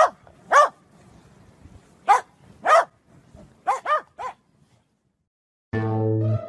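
Corgi barking: about seven short barks, singly and in pairs, over the first four seconds or so. After a brief silence, music with held notes starts near the end.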